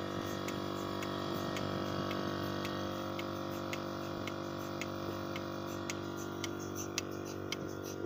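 Trolley milking machine running: its 0.75 hp electric motor and oil-type vacuum pump give a steady hum, while the pulsator on the milk-can lid clicks about twice a second.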